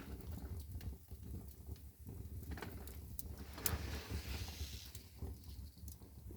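Wood fire burning in a brick fireplace: scattered crackles and pops with soft hissing swells, over a steady low rumble.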